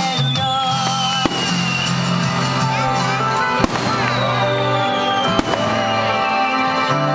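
Aerial fireworks shells bursting, three sharp bangs about a second, three and a half seconds and five and a half seconds in, over loud music with long held notes.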